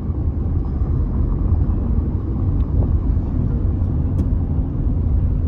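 Steady low rumble of a moving car, road and engine noise with no pitch changes, cutting off suddenly near the end.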